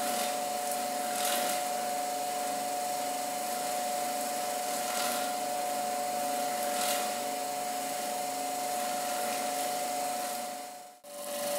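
Masuko Supermasscolloider MKCA6-5J stone grinder running steadily, its lower grinding stone spinning at high speed against the fixed upper one as it grinds black sesame seeds into paste. A steady whine with two held tones over a hiss, breaking off about eleven seconds in.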